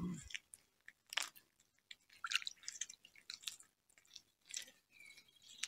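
Cats chewing raw crucian carp: faint, irregular small crunches and clicks.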